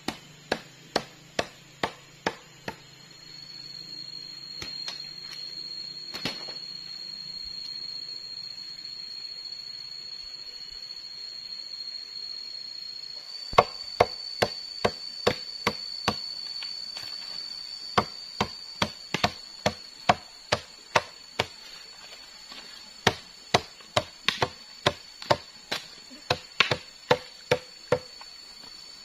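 Machete chopping through sugar palm leaves against wood to trim thatch panels, sharp strikes about two a second. The strikes stop a few seconds in and resume about halfway through, irregular to the end. A steady high-pitched buzz fills the gap and runs on behind the later strikes.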